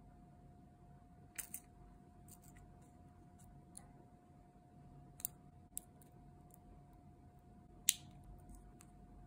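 Small metal nail tools clicking as they are handled against long gel nails: tweezers, a metal jump ring and a steel nail clipper. A few sharp, scattered clicks, a quick pair about a second and a half in, two more around five to six seconds, and the loudest near the end, over a faint steady hum.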